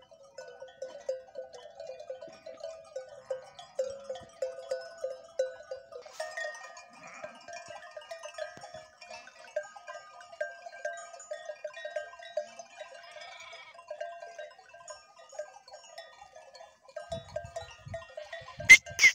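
Many sheep bells jangling irregularly as a large flock grazes, with a couple of sharp knocks near the end.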